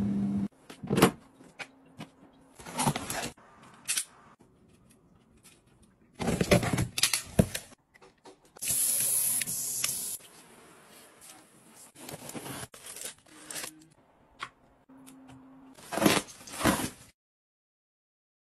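A run of short handling sounds from household gadgets. A small spin-washer motor hums and stops about half a second in. Then come scattered clicks, scrapes and rustles, and a steady hiss of water spray from a swivel tap sprayer head for about a second and a half around nine seconds in.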